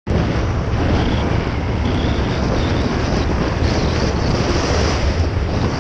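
Wind rushing over the microphone on a moving Honda PCX 125 scooter, a loud, steady, rumbling buffet with no clear engine note.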